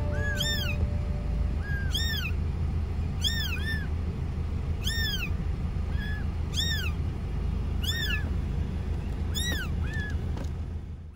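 Newborn kitten mewing over and over: high, thin, arched cries about once a second, over a steady low rumble.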